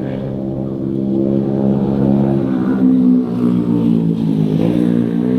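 An engine running steadily nearby, its pitch shifting slightly about halfway through and again near the end.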